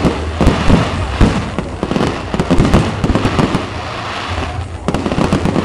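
Fireworks display: aerial shells bursting in a rapid, irregular run of bangs, which eases briefly a little before the end.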